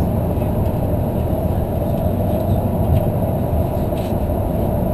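Steady low rumble of a city bus's engine and tyres on the road, heard from inside the passenger cabin while it drives along.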